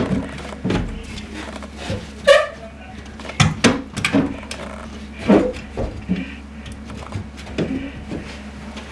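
Irregular knocks and clunks of an old brass shower valve body and its copper pipes being worked loose and knocking against the wall opening and framing, with one short pitched squeak about two seconds in.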